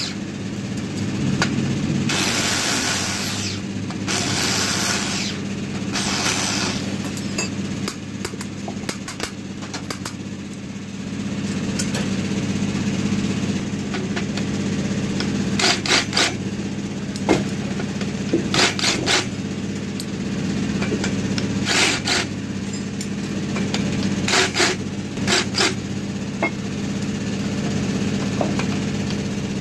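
Angle grinder running steadily while it grinds the valve seats of a four-cylinder aluminium cylinder head, with rasping grinding in the first several seconds. From about halfway on, sharp metal clinks sound over the hum as the steel pilot tool is moved between valve guides.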